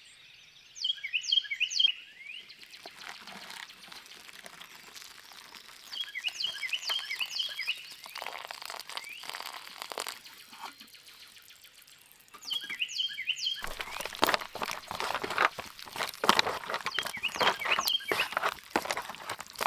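A songbird repeats a short phrase of high chirping notes about every six seconds. Hot water is poured into a foil-lined dehydrated meal pouch partway through, and from about two-thirds of the way in the pouch crinkles and rustles loudly as the food is stirred inside it with a long spork.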